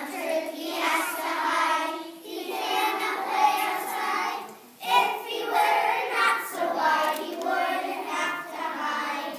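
A group of young children singing together in unison, in three long phrases with short breaks between them.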